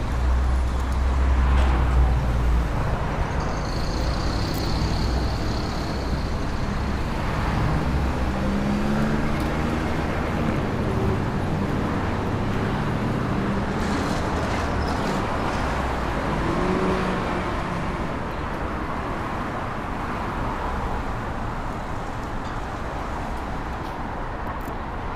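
City street traffic: cars and buses running and passing in a steady wash of engine and tyre noise. The low engine rumble is heavier in the first half and eases off later, and a thin high whine sounds for a few seconds early on.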